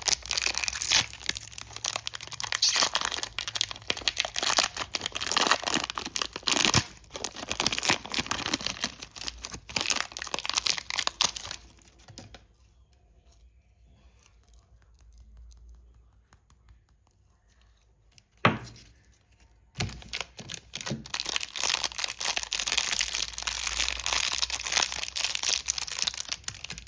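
Chocolate wrappers being torn open and crinkled close up: a long run of dense crackling, then a few quieter seconds broken by a sharp snap, then more crinkling near the end.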